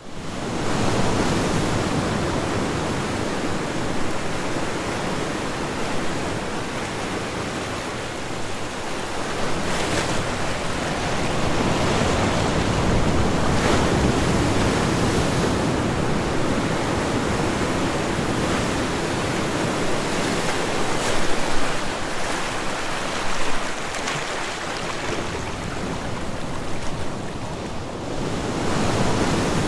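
Small ocean waves washing in over sand and shallow water, a continuous rush that swells and eases, with wind on the microphone.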